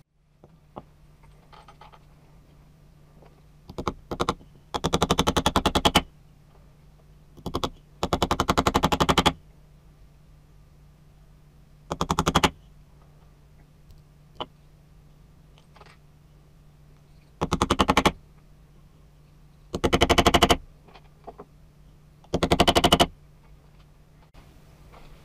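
About eight short bursts of very rapid, machine-like striking, each lasting up to about a second, as tacks and screws are driven into a wooden board. A few single light taps fall between the bursts.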